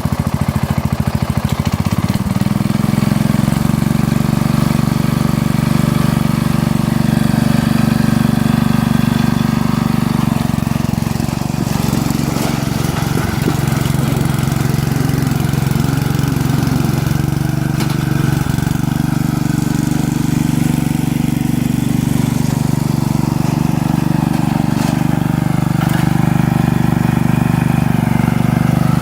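Riding lawn mower's small engine running hard and loud, picking up speed about two seconds in and then holding a steady, throttled-up note while it works against the load.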